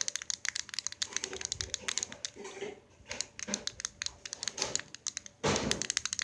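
Rapid, irregular clicking of a plastic fidget cube's buttons and switches being pressed over and over, with a brief louder rustle of handling near the end.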